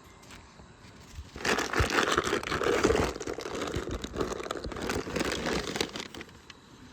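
Crinkling and rustling, as of a plastic bag or wrapper being handled. It starts about a second and a half in and goes on for about five seconds as a dense run of small crackles.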